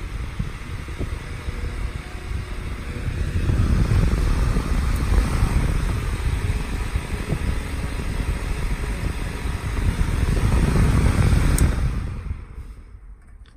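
Lakewood small metal desk fan running, its air rushing over the microphone in a low, fluttering rumble that swells louder twice as the camera comes close to the grille. Near the end the sound falls away as the fan is switched off and winds down.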